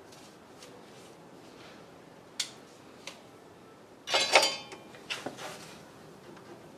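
Metal hand tools clinking: two light clicks, then a short ringing metallic clatter about four seconds in, followed by a few more clinks.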